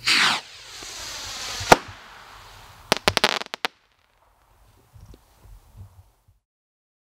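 A 'Going Supernova' firework rocket launching with a whoosh and climbing for about a second and a half, then bursting with one sharp bang. About a second later comes a quick cluster of crackling pops, after which it goes quiet.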